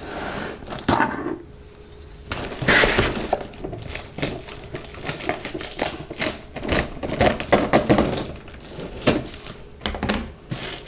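Plastic shrink-wrap foil being torn and peeled off a product box: dense, irregular crackling and crinkling that starts about two seconds in.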